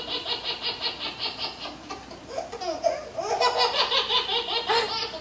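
Laughter in quick, repeated bursts, breaking off briefly around two seconds in and starting up again.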